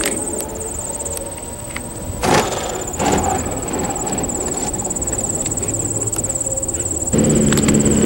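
Open-field ambience with a steady high-pitched insect buzz and low wind rumble, broken by a short burst of noise about two seconds in. In the last second the gasoline engine of the model plane (a DLE 61cc) comes in loud and close, picked up by the camera mounted on the plane.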